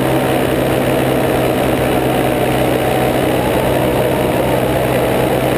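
Paramotor engine and propeller running steadily in flight, a constant loud drone close to the motor.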